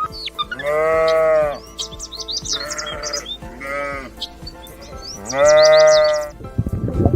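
Sheep bleating: two long calls of about a second each, one near the start and one about two-thirds through, with two shorter bleats between them, alongside quick high chirps.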